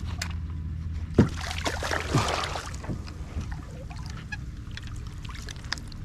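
Water splashing and sloshing against a fishing kayak, with scattered small knocks and clicks, over a steady low hum.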